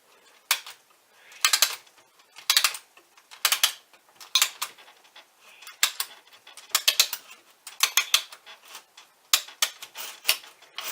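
Clockwork spring motor of a Marx No. 400 wind-up toy locomotive being wound with its key: short bursts of ratchet clicks, about one burst a second, one for each turn of the key.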